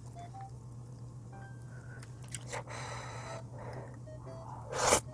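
Instant black-bean noodles (Chapagetti) being eaten from chopsticks: soft eating noises, then a short, loud slurp of noodles near the end.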